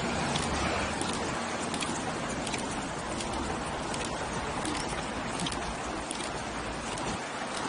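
Steady rushing wind and road noise on the microphone of an action camera carried by a runner, with faint regular ticks about one and a half times a second.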